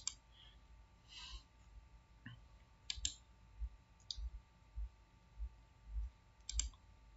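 Faint computer mouse clicks: a click at the start, a double click about three seconds in, another a second later and a double click near the end. Soft low thumps come about every half second in the second half.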